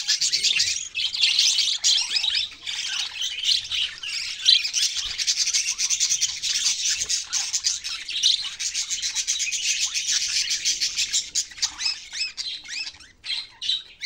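Budgerigars chattering and warbling in a dense, continuous stream of high chirps, thinning to a few separate chirps near the end.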